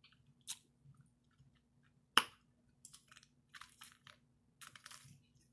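Close-up mouth sounds of eating and drinking: soft wet chewing clicks and short sipping bursts through a plastic straw, with one sharp click about two seconds in.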